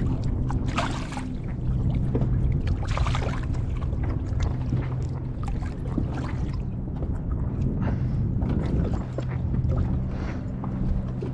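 Water lapping and gurgling against a kayak hull on open water, with scattered splashes and crackles over a steady low hum.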